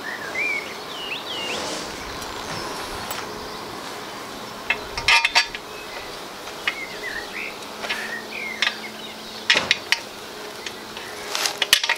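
Metal frame parts of a flatpack glider chair knocking and clinking as they are handled and bent into line, with a few sharp knocks about five seconds in, again near ten seconds, and a cluster near the end. Short chirps from a bird come now and then over steady outdoor background noise.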